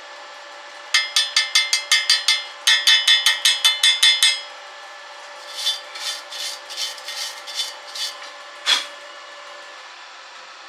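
Hammer rapidly striking steel with a ringing metallic tone: two fast runs of about five blows a second, then lighter, softer taps and one last blow near the end.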